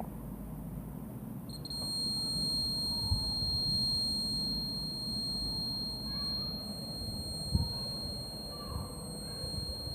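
Arduino alarm's piezo buzzer sounding one steady high-pitched tone, starting about a second and a half in: the home-made security alarm going off. A couple of short knocks come through underneath.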